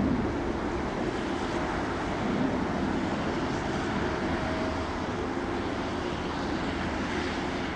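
Airbus A340-300's four CFM56 turbofan engines at take-off thrust during the take-off roll, heard as a steady rumble and hiss.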